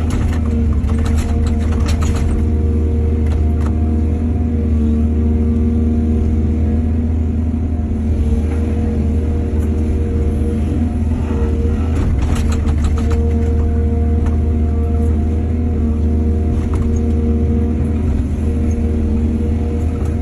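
Excavator's diesel engine running steadily under hydraulic work, with clusters of metallic clanks about a second in and again around twelve seconds in.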